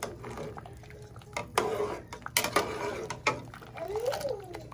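Metal spoon stirring penne pasta in a pot of hot water, knocking against the pot a few times with the water sloshing.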